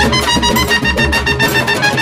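Instrumental music: a melody that steps gently downward over a steady, pulsing bass beat.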